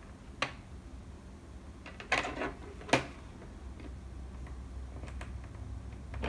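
A few light clicks and knocks of small plastic toys being handled: one about half a second in, a short cluster around two seconds in, and a sharper click near three seconds.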